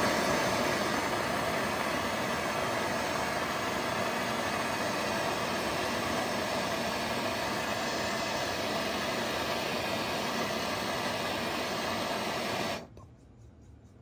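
Hand-held gas torch flame hissing steadily while it heats a copper refrigerant line joint for soldering. The hiss cuts off suddenly near the end, when the torch is taken away.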